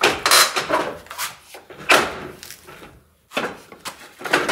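Jeep Wrangler JL factory front bumper clunking, rattling and scraping against its mounts as it is tugged by hand, in a string of irregular knocks; it is stuck on a bent mount and won't slide off.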